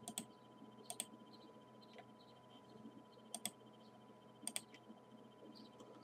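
Near silence broken by a few short, faint clicks, some in quick pairs, about once a second or so, over a faint steady tone.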